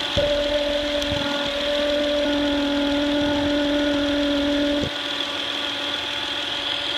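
2008 Honda Accord's 3.5-litre V6 idling, with a steady alternator whine that comes in just after the start and cuts off about five seconds in. The whine is caused by a failed diode in the alternator.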